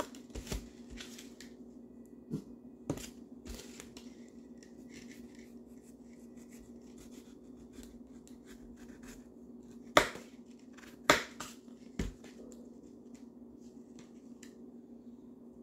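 Knife cutting food on a cutting board: scattered light taps and clicks, with three sharper knocks about ten to twelve seconds in, over a steady low hum.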